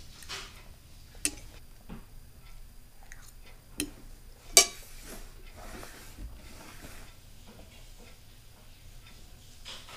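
Metal fork clinking and scraping on a ceramic plate while eating: a few sharp clinks, the loudest about halfway through.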